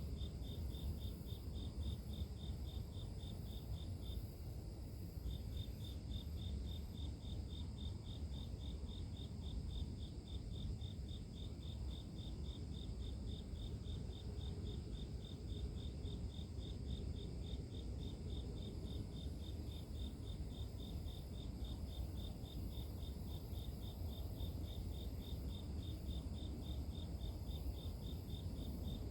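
Grass insects chirping at night: one cricket repeats a rapid, even, high chirp that stops for about a second some four seconds in, over a steady high shrill of other insects and a low steady rumble.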